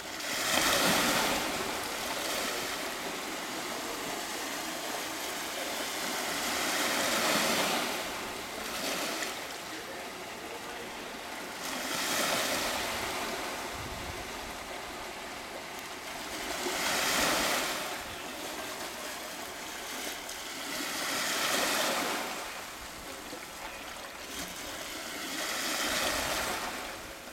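Small waves washing onto the shore. Each swell of surf rises and falls, about every four to five seconds.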